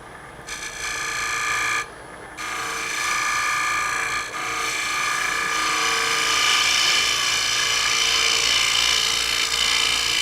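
Wood lathe spinning a maple lid while a turning tool takes a light finishing cut: a steady cutting hiss with a ringing whine. It starts about half a second in, breaks off briefly near two seconds, then carries on.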